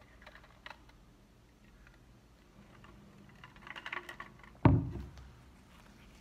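Handling noise: a few light clicks and small rattles, then one loud, dull thump about three-quarters of the way through that fades over about half a second.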